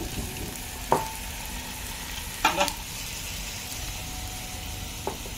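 Mushroom masala sizzling steadily in an aluminium pot over a wood fire. A sharp metal clink rings out about one second in, a louder double clank comes around two and a half seconds, and a small click sounds near the end.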